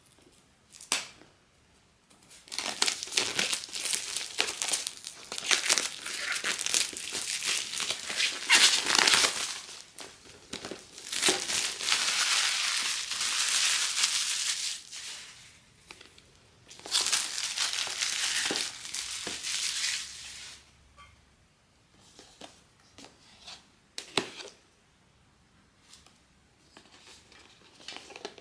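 Blind-box packaging being opened by hand: a sealed wrapper crinkling and tearing in long dense stretches. After that it dies down to a few light clicks and taps.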